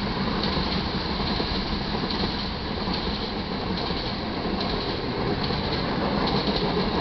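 Iron ore hopper cars of a freight train rolling past close by: a steady rumble and rattle of steel wheels on the rails, with no pauses.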